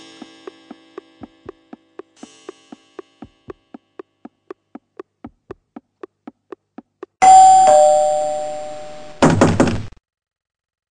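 Steady ticking, about four ticks a second, with two faint chimes; then a loud two-tone ding-dong doorbell, the second note lower, followed about two seconds later by a quick run of loud knocks.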